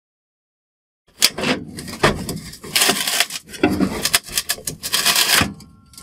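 Old furnace inducer motor housing being worked loose and pulled off the furnace's sheet-metal wall, starting about a second in: an irregular run of metal scrapes, rubs and knocks. The housing is stuck and hard to get off.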